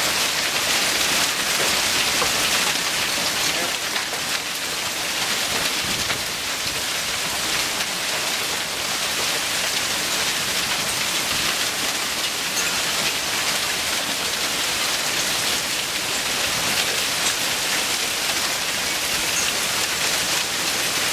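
Hail storm: hail and rain pelting down, a dense, steady patter of countless small hits.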